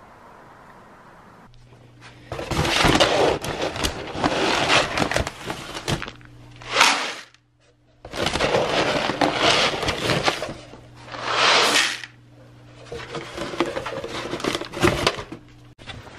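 A paper feed sack rustling and crinkling as feed pellets are poured from it into a plastic bucket. The sound comes in several loud stretches of a few seconds each, with brief pauses between them, over a low steady hum.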